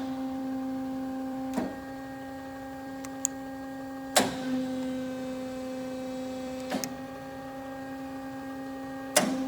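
Steady hum of a 1984 Amada H-900 HD band saw's hydraulic pump motor driving the vise. Four sharp clicks come about every two and a half seconds.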